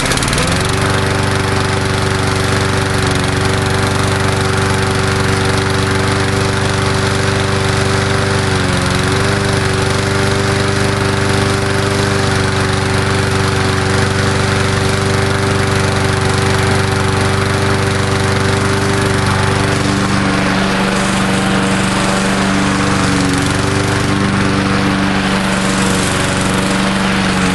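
Murray Dynamark 22 push mower's 3.75 hp Briggs & Stratton single-cylinder engine running steadily at speed, just started from cold after sitting unused for about seven years. Its speed dips briefly about nine seconds in and wavers slightly near the end.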